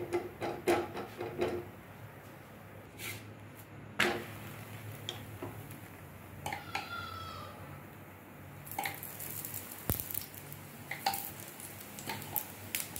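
Scattered knocks and clatter as a paratha is laid and handled on an iron tawa. From about nine seconds in, ghee sizzling on the hot tawa.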